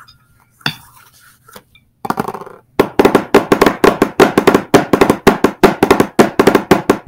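Drumsticks playing a rudiment on a drum practice pad: a short roll about two seconds in, then a steady fast run of sharp strokes, about seven a second, some of them accented.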